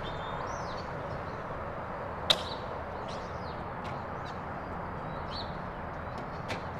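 A sharp click about two seconds in as the car's driver door is unlatched and opened, and a fainter click near the end. Small birds chirp now and then over a steady outdoor hiss.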